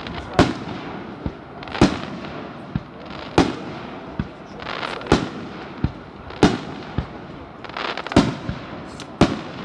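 Aerial fireworks shells bursting in a steady series of loud bangs, about one every second and a half, each trailing off in an echo, with crackling between the bangs.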